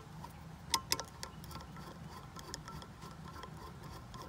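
Screwdriver turning the impeller screw into a pool pump motor shaft: a few sharp metal clicks about a second in, then faint irregular ticks as the screw is driven in. The screw has a left-hand thread, so it tightens counter-clockwise.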